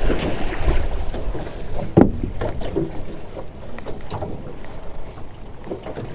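Crab drop-net rope being hauled hand over hand over the side of an aluminium boat, with wind buffeting the microphone and scattered knocks and rubbing against the hull; a sharp knock about two seconds in is the loudest sound.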